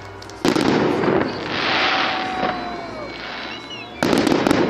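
Aerial firework shells bursting overhead: a sharp boom about half a second in and another near the end. Each boom is followed by a spell of crackling as the glittering stars burn out.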